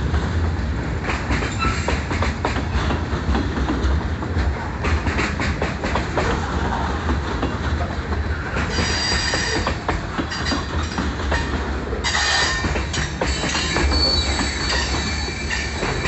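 Freight train's covered hopper cars rolling past close by, steel wheels clicking over the rail joints under a steady rumble. High wheel squeals come and go in the second half.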